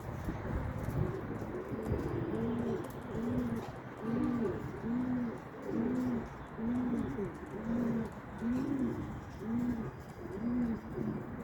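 Pigeons cooing: a low coo repeats about every 0.8 seconds, with other coos overlapping above it.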